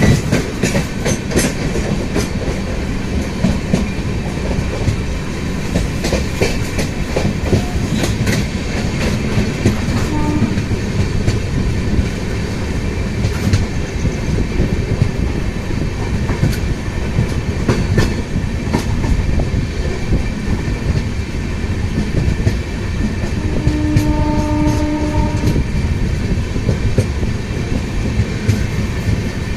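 Grand Trunk Express passenger train running along the line: a steady rumble of wheels on rails with clickety-clack over the rail joints. The horn sounds twice, a short toot about a third of the way in and a longer blast of about two seconds later on.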